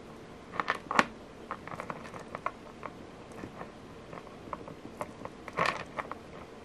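Light clicks and rustling from fingers handling a beaded strand while tying knots in its thread, the lava stone and metal beads knocking together. The louder clicks come about a second in and again near the end.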